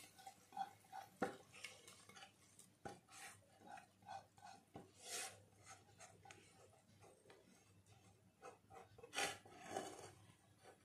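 Spatula scraping cooked masala out of a pan into a pressure cooker: faint, irregular scrapes with a few light knocks of metal cookware.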